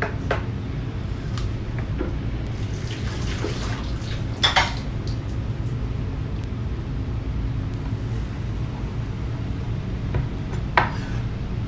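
A few short knocks of vegetables and a knife being set down on a bamboo cutting board, the loudest a little before halfway, over a steady low hum.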